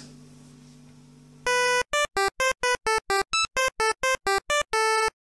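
Short synthesizer outro jingle: a quick run of bright electronic notes, about four a second, ending on a longer held note. Before it starts there is a second and a half of faint room hum.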